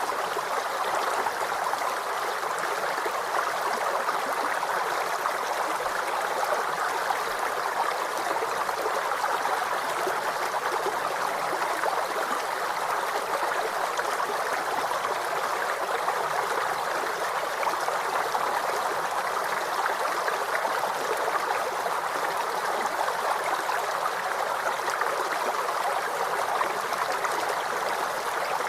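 Waterfall: a steady, unchanging rush of falling water, with little deep rumble.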